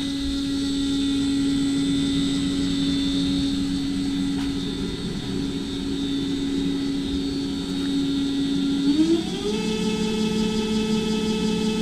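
Electric roller drive of a SAR400 20-tonne self-aligning welding rotator running, a steady whine from the motor and gearbox. About nine seconds in the whine rises smoothly to a higher pitch and holds there as the roller speed is turned up.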